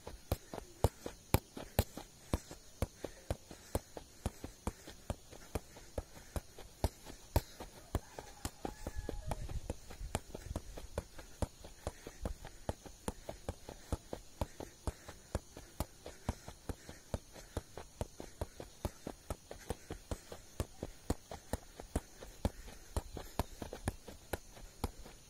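Football being juggled: a steady run of sharp taps as the ball comes off foot and knee, about two to three touches a second without a break. A brief low rumble comes in about nine seconds in.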